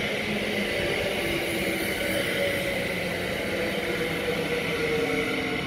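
NS Sprinter electric multiple unit passing close by: steady rolling noise of wheels on rail with faint whining tones.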